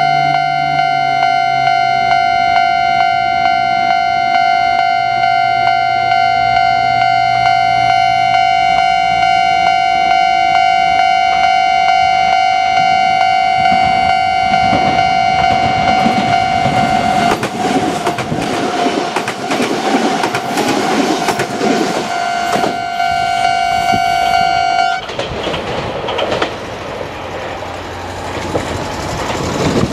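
Japanese level-crossing warning bell ringing steadily while a Kintetsu train passes over the crossing, its wheels clattering over the rail joints from about 15 seconds in. The bell cuts off about 25 seconds in and the train runs on.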